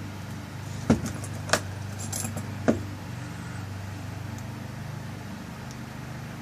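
Small metal clicks and clinks of a lock cylinder's tail piece and parts being handled and screwed on: three sharp clicks in the first three seconds with a light rattle between them, over a steady low hum.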